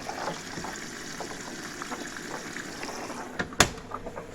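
Washing machine filling with water: a steady trickling of water coming in. A single sharp click about three and a half seconds in.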